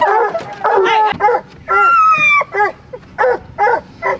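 Hunting hounds barking and bawling as they are turned loose on a bear's track: a quick run of overlapping barks, one long falling bawl about two seconds in, then single barks about every half second.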